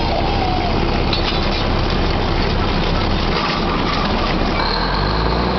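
Drilling rig machinery running loud and steady during tripping pipe, a dense clatter and rumble of engines. Near the end a deeper engine note comes in and rises in pitch, as the engine takes more load.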